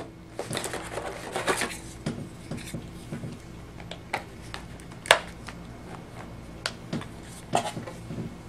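Handling of a tablet's leather keyboard case: rustling with scattered light clicks and knocks as it is propped up and adjusted, and one sharp click about five seconds in.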